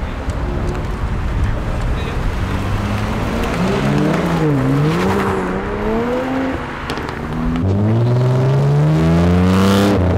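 Sports car engines accelerating away. About four seconds in, the revs rise and fall several times. Near the end one engine pulls hard, its note climbing steadily in a long acceleration.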